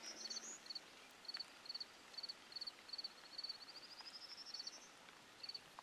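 Faint cricket chirping: short high chirps of three or four pulses each, about two a second. A rising high trill runs over it for about a second and a half near the middle.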